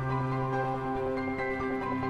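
Slow instrumental background music with long held notes; the low note changes about a second in.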